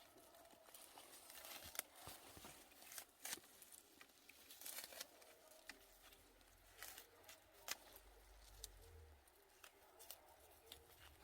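Faint, sparse snaps and rustles of mulberry leaves being picked by hand, each one brief. A soft low hum rises between about six and nine seconds in.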